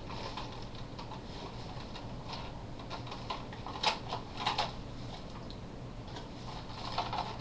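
A Nerf Long Strike blaster's plastic body being handled and turned over: a few light, scattered clicks and taps over a faint steady hum.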